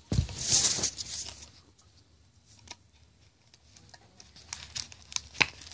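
Tape and plastic packaging on a guitar pick tin being pulled and torn: a short tearing rustle at the start, then quieter rustling with a few sharp clicks as the wrapped tin is handled.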